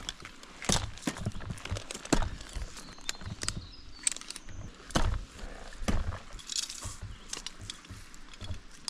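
Irregular knocks, clicks and scuffs of a tree climber moving out along a limb, his metal climbing hardware clinking against itself and the bark.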